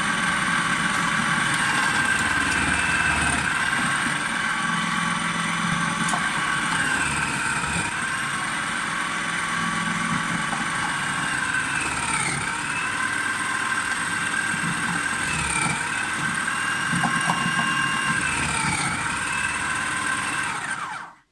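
Electric food chopper running steadily, chopping apple for soft bird food, its whine dipping briefly in pitch several times; it switches off just before the end.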